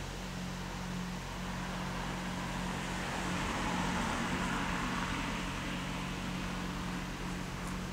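A car passing along the street, its tyre and engine noise swelling and fading about three to five seconds in, over a steady low hum.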